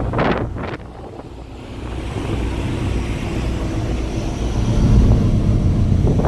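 Wind buffeting the microphone on a ferry's open deck at sea, a low rumbling hiss. It drops off about a second in, then builds again and is loudest from about five seconds in.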